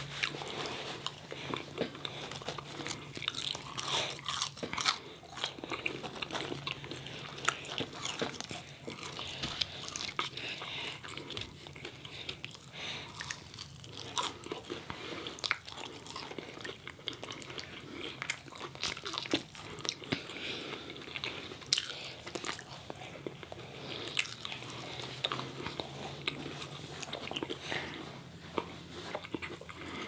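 Close-miked eating sounds: biting into and chewing breaded fried chicken fingers, with many small crunches.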